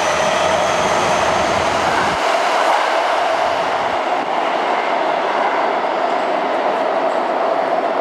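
Toyo Rapid Railway 2000 series electric train running out of an underground station into the tunnel: a steady rushing rumble of wheels and running gear, echoing in the tunnel.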